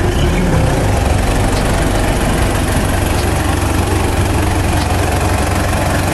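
Engine of a four-wheel-drive SUV running steadily with a low hum, revving briefly about half a second in as it pulls out and moves off.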